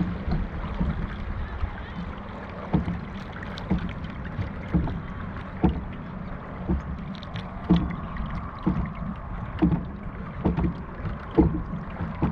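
Dragon boat crew paddling in time: the paddles strike the water together about once a second, over a steady rushing noise.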